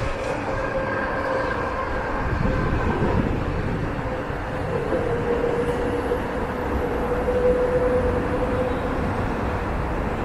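Steady city traffic noise from a busy multi-lane road below, a low rumble with a vehicle's humming drone that swells in the middle.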